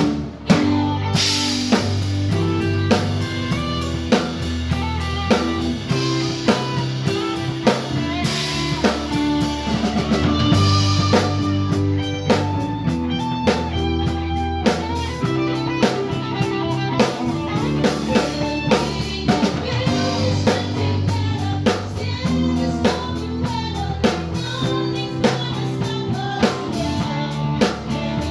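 Acoustic drum kit played to a steady beat, with regular drum hits and cymbals, along with band music carrying a bass line.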